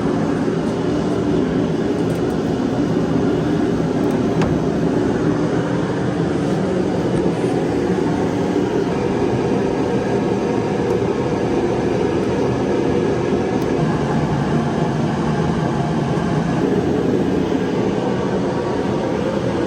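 Steady mechanical drone with a low hum, unchanging in pitch and level.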